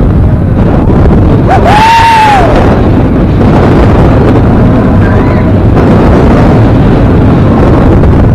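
Loud rush of wind on the microphone of a camera riding a roller coaster train at speed. About two seconds in, a rider gives one long scream that rises and falls.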